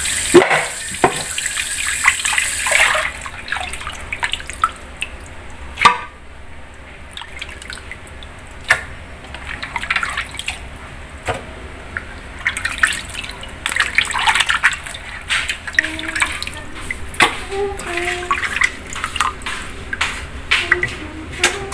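Tap water pouring into a metal basin of raw beef shank, stopping after about three seconds; then hands rub and swish the meat in the water, with irregular splashes and sloshing.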